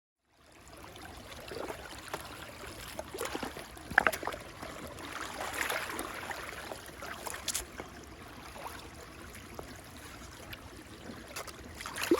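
Creek water running over rocks, a steady rush that starts a moment in, with a few sharp clicks and knocks on top, the loudest about four seconds in.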